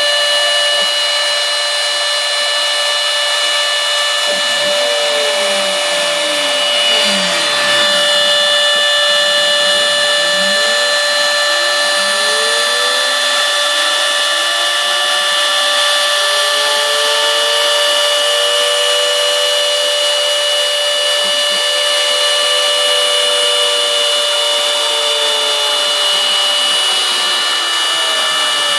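Homebuilt CNC router's spindle running steadily while it mills pockets in florist foam, with high whining tones. From about four seconds in, further whines glide up and down in pitch as the machine's axes move.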